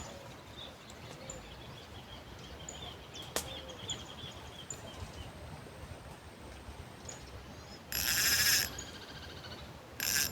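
Birds calling: scattered faint high chirps and a soft trill over a steady background hiss. A loud harsh call comes about eight seconds in, and a shorter one near the end.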